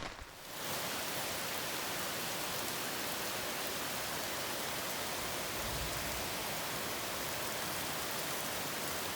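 Steady rainfall, an even hiss with no breaks, starting just after a short dip about half a second in and fading out at the end.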